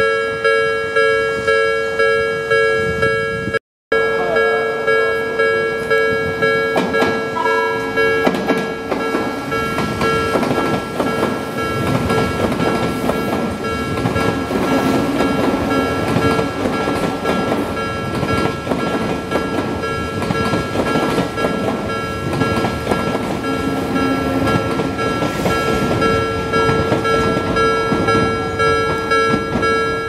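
Japanese level-crossing warning bell ringing in a steady repeating pattern, with a train rumbling through the crossing from about eight seconds in while the bell keeps ringing over it.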